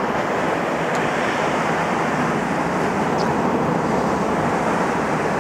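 Steady roar of ocean surf breaking on a rocky shore.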